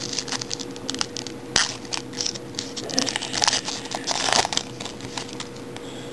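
Wrapper of an Upper Deck SP Game Used hockey card pack being torn open and crinkled by hand: an irregular run of crackling, tearing and sharp clicks that eases off after about four and a half seconds.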